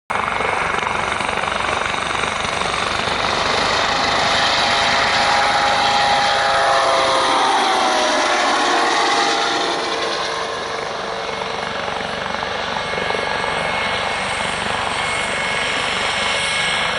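Helibras HM-1 Pantera (AS565 Panther) military helicopter taking off: a loud, steady turbine whine with a rapid rotor beat. About halfway through, the whine slides down in pitch as the helicopter passes, then the sound eases a little as it climbs away.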